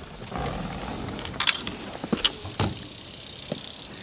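A handful of short, sharp clicks and clacks, about five spread over the few seconds, over a faint low rumble at the start.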